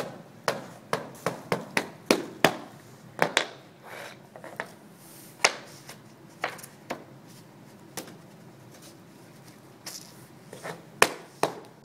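Laminate flooring planks being knocked and clicked together: a quick run of sharp mallet taps in the first few seconds, then scattered knocks and clicks as the planks are handled and snapped into place by hand.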